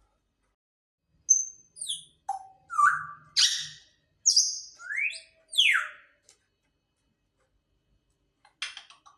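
Grey parrot calling: a quick run of whistles and squawky chirps, some sliding up and some sliding down in pitch, for about five seconds before it falls quiet. A couple of short scratchy sounds come near the end.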